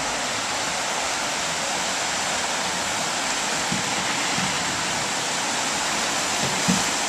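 Steady rush of ocean surf washing up the beach, an even noise that holds at one level.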